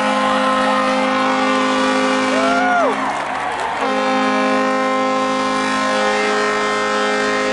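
Ice-hockey arena's final horn blowing two long, steady blasts with a short break between them, marking the end of the game.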